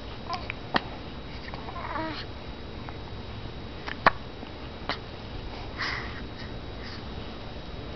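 Hiccups: short, sharp 'hic' sounds, one about a second in, the loudest just after four seconds, and another near five seconds.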